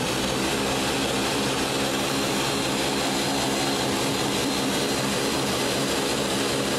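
Ninja high-performance blender running steadily, blending soaked almonds with water into almond milk: an even motor whine with a constant pitch.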